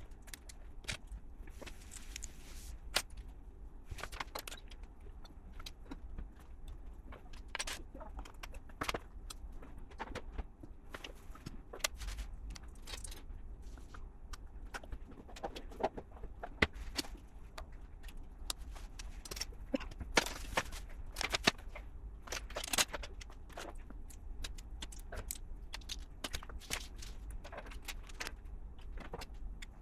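Small plastic LEGO pieces clicking and rattling as they are handled and pressed together: irregular sharp clicks, a few louder ones in the middle stretch, over a steady low hum.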